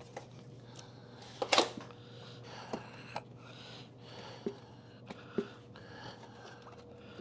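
A bucket being handled and opened: scattered sharp clicks and knocks, the loudest about one and a half seconds in, over faint rustling.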